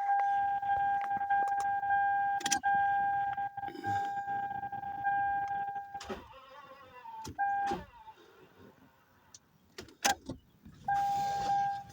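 A steady electronic warning tone sounds for about six seconds, cuts out, then comes back briefly twice, with scattered sharp clicks between.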